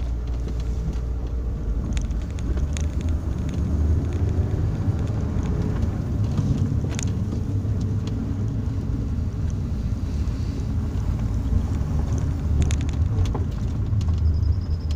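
Hyundai Santa Fe SUV driving slowly over a rough dirt track, heard from inside the cabin: a steady low rumble of engine and tyres on the ruts, with a few sharp knocks and clicks from the bumpy ground.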